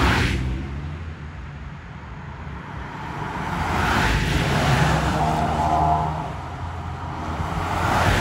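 Motor vehicles passing close by on a two-lane road. The loudest pass is right at the start. A longer pass with an engine hum and a steady whine follows about four to six seconds in, and another vehicle rushes by at the very end.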